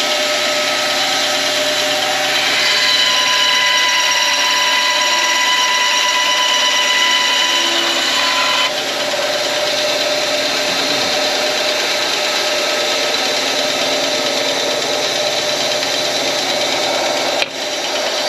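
Power saw running steadily while cutting a piece of deer antler; its tone shifts about nine seconds in and dips briefly near the end.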